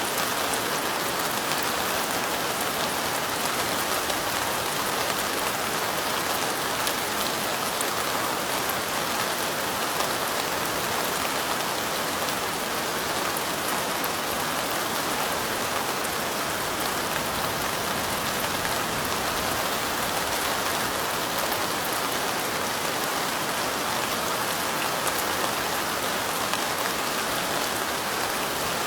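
Steady light rain, with drops pattering on window glass in an even hiss and fine, scattered drop ticks.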